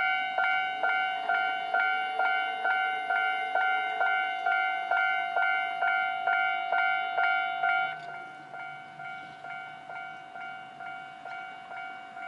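Japanese railroad crossing warning bell ringing its kan-kan signal, about two strikes a second, each strike a ringing chime. About eight seconds in it suddenly becomes much quieter and keeps ringing.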